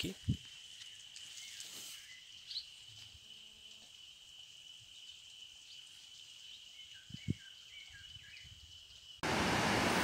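Faint steady high-pitched insect drone with a few soft bird chirps and one dull knock. Near the end it cuts suddenly to the loud, even rush of a river in flood.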